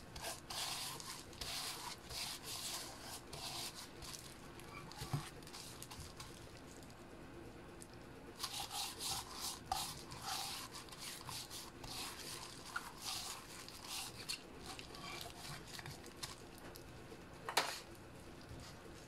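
Rubbing strokes of a disposable plastic-gloved hand working black pepper into the skin of a whole raw fish, in two spells with a quieter pause between them. A single sharp tap near the end.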